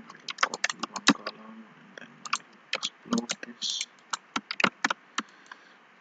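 Computer keyboard keys and mouse buttons clicking in a quick, irregular run, with a short rattle of keys about three and a half seconds in. The clicks stop nearly a second before the end.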